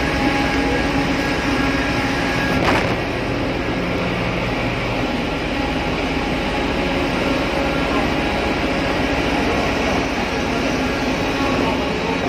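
Steady, loud machinery drone of a ship's engine room, a dense hum with several steady tones underneath, broken by a single sharp knock about three seconds in.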